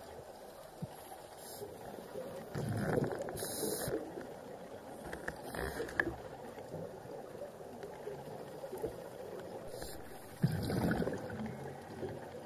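Scuba diver breathing through a regulator underwater: exhaled bubbles rumble out twice, about eight seconds apart, with a faint hiss between breaths and a single sharp click midway.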